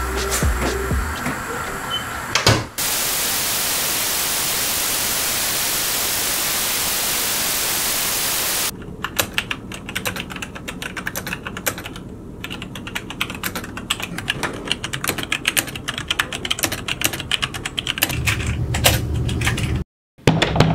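A steady hiss of static for about six seconds that cuts off abruptly, followed by fast typing on a computer keyboard: many quick, irregular key clicks.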